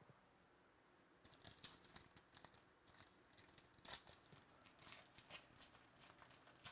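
Foil trading-card pack being torn open and crinkled by hand: an irregular run of crackles and rustles starting about a second in, loudest around the middle.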